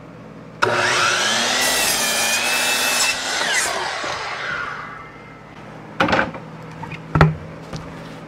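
DeWalt sliding miter saw starting up about half a second in and cutting through a scrap board for a couple of seconds. Its motor then winds down with a falling whine. Two sharp knocks follow near the end.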